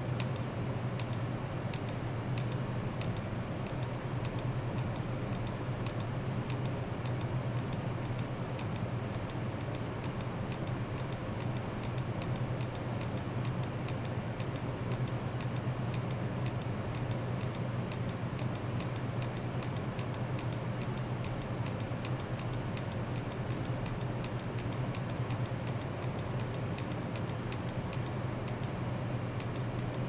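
A steady low hum with rapid, regular high ticking, several ticks a second, going on evenly throughout.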